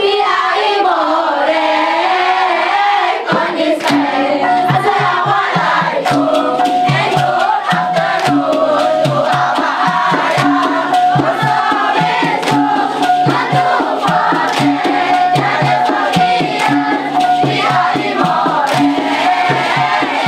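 Dikir barat performance: a chorus of voices singing, joined about three seconds in by a steady rhythm of drum strokes and a repeating bass pattern, with one held note sounding over it.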